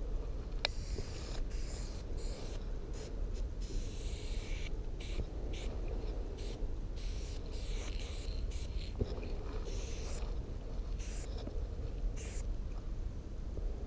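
Aerosol spray-paint can hissing in repeated bursts, some short and some a second or more long, as black outline lines are sprayed onto a train car.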